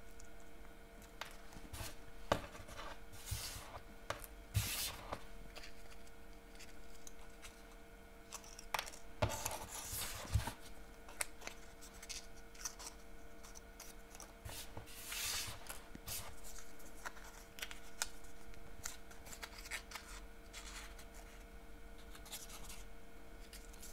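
Small paper poinsettia blossoms and a holly leaf being pinched and folded into shape by hand: scattered paper rustles, crinkles and light clicks, over a faint steady hum.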